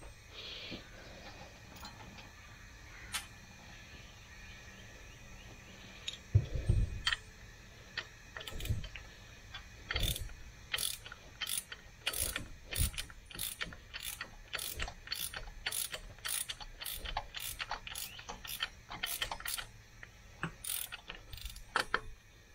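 Hand ratchet clicking as it turns a socket on a rocker arm stud nut of the cylinder head. At first there are a few scattered metallic knocks; from about halfway in, the ratchet clicks quickly and steadily, about two clicks a second.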